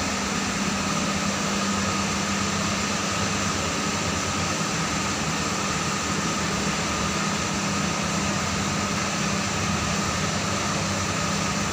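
Steady machine hum: a low drone with a thin, higher whine over a hiss.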